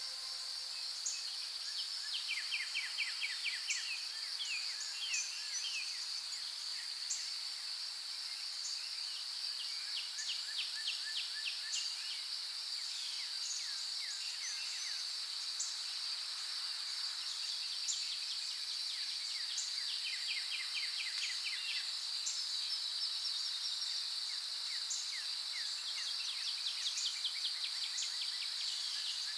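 A steady high insect trill runs throughout, with birds chirping in quick runs of notes several times.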